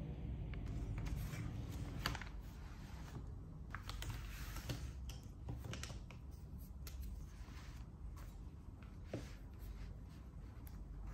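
Faint, scattered clicks and light taps from handling pens at a desk, as pens are picked up over an open notebook.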